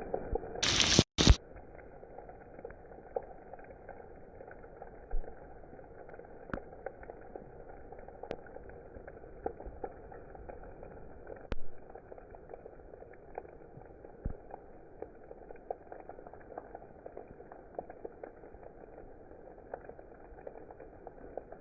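Steady rain, an even hiss with many small drops ticking through it. About a second in there is a brief, much louder burst of noise, after which the rain is a little quieter.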